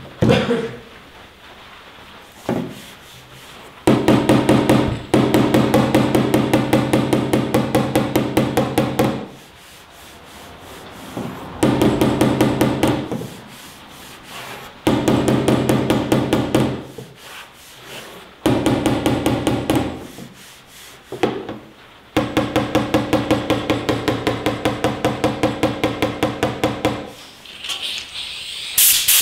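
A body hammer tapping high spots down on a bare sheet-metal panel, in quick runs of light, evenly spaced taps a few seconds long, the metal ringing under each run. The high spots showed as bare metal coming through the body filler during block sanding. Near the end, a hissing blast from a compressed-air blow gun.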